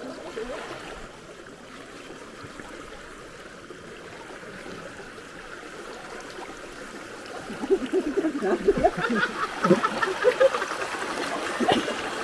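Shallow river running over rocks, a steady rush of water. From a little past halfway, close irregular splashing and sloshing as people move through the water.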